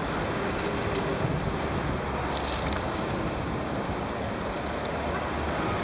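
Common kingfisher calling: a quick run of about seven short, high-pitched notes, followed by a brief hiss, over the steady rush of a stream.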